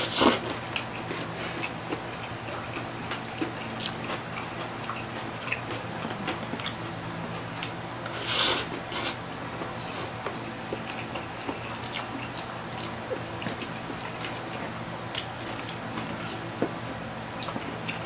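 Close-miked eating: chewing, lip smacks and noodle slurping as two people eat pancit, with small fork clicks, and one louder slurp about eight seconds in.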